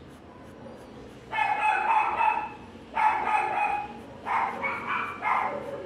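High-pitched animal cries in several drawn-out bouts, starting about a second in and coming closer together near the end.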